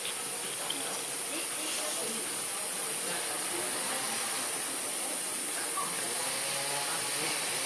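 Outdoor ambience: a steady high hiss with faint, distant voices underneath.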